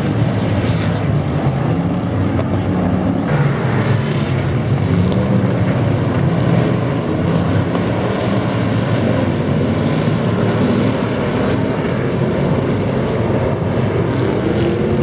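Race car engines running loud and continuously, their notes wavering up and down as they rev, over a dense rushing noise.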